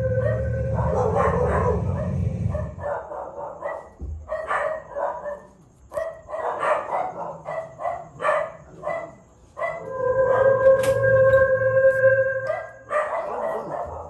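Drawn-out, wolf-like werewolf howls, a recording played through a loudspeaker, at the start and again from about ten to thirteen seconds in. In between, a dog barks over and over in short, quick barks.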